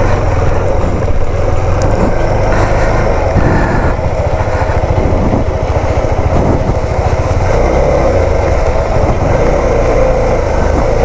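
Motorcycle engine running steadily while the bike is ridden, with wind rumbling over the microphone.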